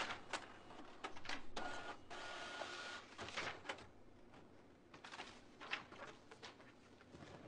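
Desktop inkjet printer printing a page: short mechanical whirs and clicks as the print head moves across and the paper feeds, with a brief steady whine in the middle. Near the end the printed sheet rustles as it is pulled from the output tray.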